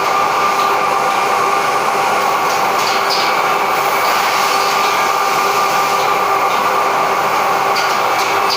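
Automatic edge banding machine running steadily, a constant mechanical noise with a fixed whine, and a few faint ticks about three seconds in and near the end.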